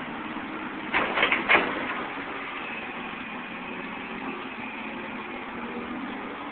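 Old Caterpillar 235 excavator running under load, its diesel engine and hydraulic pump droning steadily, with a quick run of three or four metal clanks about a second in from the digging linkage, which the onlooker puts down to undersized pins.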